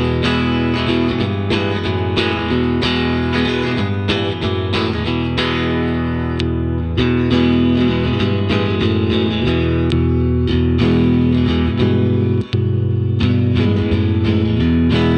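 1966 Teisco ET-460 'Shark Fin' electric guitar played with fast, continuous picked chords, breaking off for a moment about twelve seconds in.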